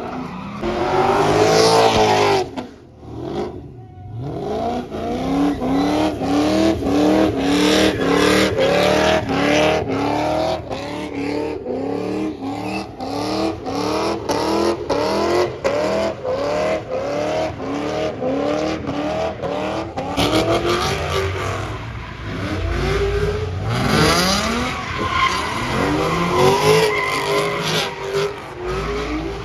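A car spinning donuts: its engine revs climb over and over, about one and a half times a second, while the tyres spin and screech on the pavement.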